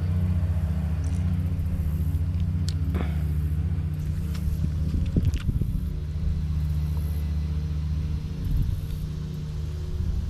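A large motor running steadily with a low, even drone, with a few brief clicks and rattles about three and five seconds in.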